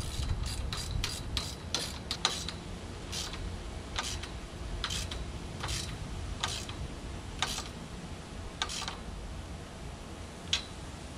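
The nut on a metal brace band around a greenhouse hoop being tightened down by hand with a wrench: a series of short metallic clicks and scrapes, several close together at first, then about one a second.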